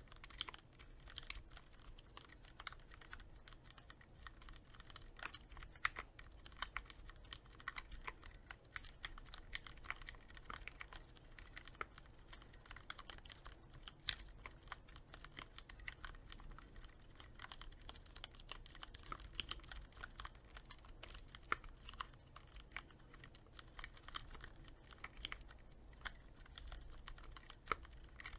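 Typing on a Cherry MX Board 3.0S mechanical keyboard with linear Cherry MX Red switches, given a quick lube with Krytox 105: a continuous stream of key presses, several a second.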